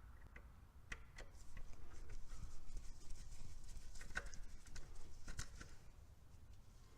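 Scattered light clicks and taps of handling, with a faint rustle through the middle seconds.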